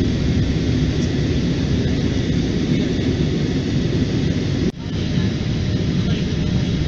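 Steady noise of engines and rushing air inside a jet airliner's cabin in flight, broken by a brief dropout a little under five seconds in.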